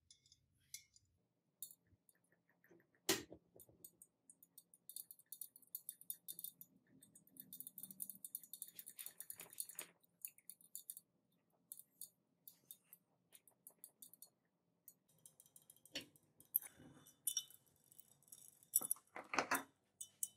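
Segmented metal watch-strap links jangling and clicking as the strap is handled, with a couple of sharper knocks, about three seconds in and again near sixteen seconds, and a denser run of rattling near the end.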